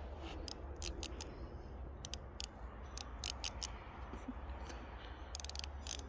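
A string of light, sharp metallic clicks from hand work on engine parts during assembly, irregularly spaced, with a quick run of clicks a little after five seconds, over a low steady hum.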